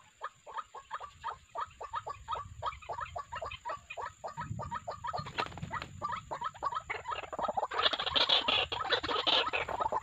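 White-breasted waterhen calls: a fast, steady run of short clucking notes, about four or five a second. Near the end comes a louder burst of flapping and scuffling.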